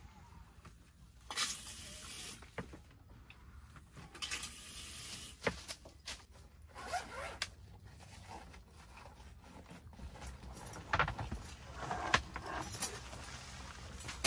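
Gear being handled: a series of short scraping, rustling sounds with a few sharp clicks, the loudest ones late on.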